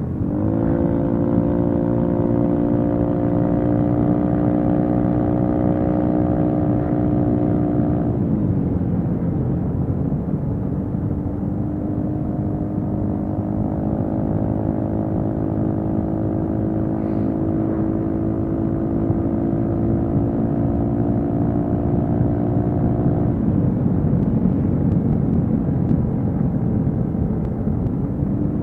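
Honda PCX150 scooter's single-cylinder engine running at a steady cruise over low wind rush. The engine note drops off about eight seconds in, comes back about four seconds later and drops off again about twenty-three seconds in.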